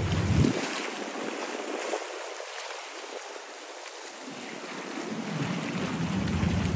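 Wind buffeting the microphone over the steady rush of sea water and waves. The gusts are strong near the start and again near the end, and ease in the middle.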